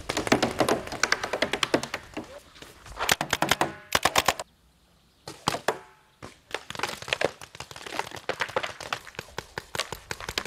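Paintball markers firing in rapid strings of sharp pops, with a short pause about four and a half seconds in.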